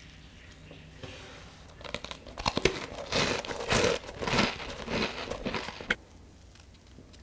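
Crisp, flaky crust of a freshly baked garlic scone crackling and crumbling as fingers squeeze and tear it open: a dense run of crackles from about two seconds in that stops sharply near the end.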